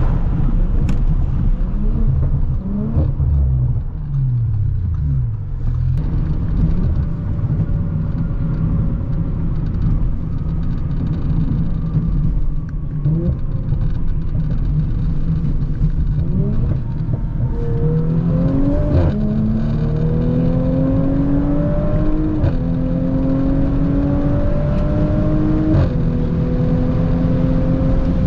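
Tuned B9 Audi S4's turbocharged V6 pulling under acceleration. Its note climbs and drops sharply at three upshifts in the second half, over steady wind noise on the microphone.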